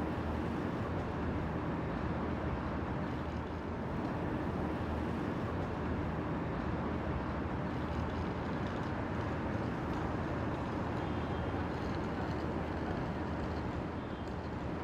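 Steady downtown street ambience: a continuous rumble of traffic with a low, even hum underneath.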